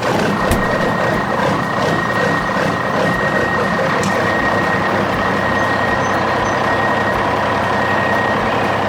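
Heavy machine engine running steadily under load, with a steady high whine over a dense rumble; it starts abruptly.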